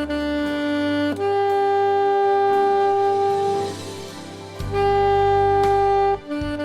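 Instrumental music: a melody of a few long held notes over a low bass line. The bass grows stronger about two-thirds of the way in.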